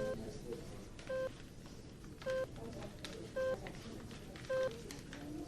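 Hospital patient monitor beeping steadily, a short beep a little more than once a second, over a low murmur of background voices.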